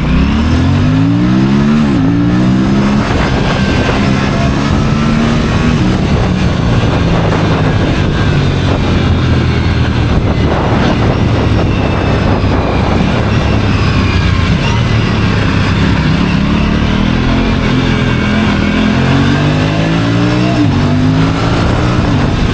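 Aprilia two-wheeler's engine running through its stock exhaust, revving: the pitch climbs over the first two seconds and drops sharply, holds fairly steady, then climbs and drops sharply again near the end.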